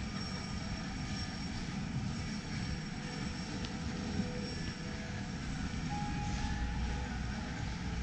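Steady low rumble and hiss of a large airport terminal hall's ambience.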